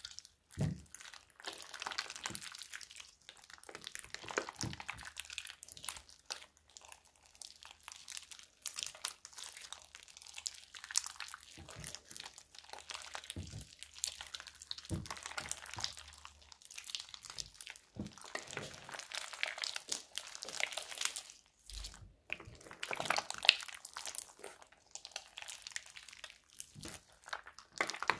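Thick, glossy slime with small beads mixed in, being squeezed, folded and stretched by hand: a run of irregular sticky crackles and pops, with a few short pauses.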